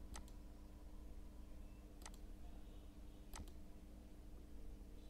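Computer mouse clicking faintly: three quick double clicks, one right at the start, one about two seconds in and one a bit over three seconds in, over a low steady hum.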